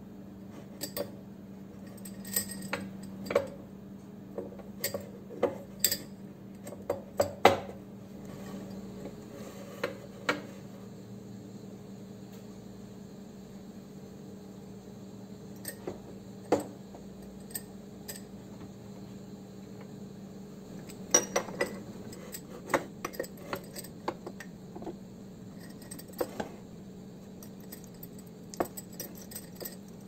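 Wire clasp of a glass clip-top jar clicking and clinking against the glass as it is fitted onto the jar, in scattered groups of sharp clicks with a lull in the middle. A steady low hum runs underneath.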